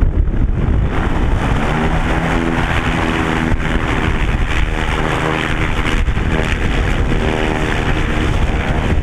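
An engine running steadily under heavy wind noise on the microphone; its pitched engine note comes through about a second and a half in.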